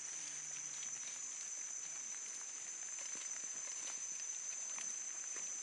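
Dense leafy undergrowth rustling, with scattered crackles and snaps of stems as gorillas move and handle the plants. A steady high-pitched drone runs underneath.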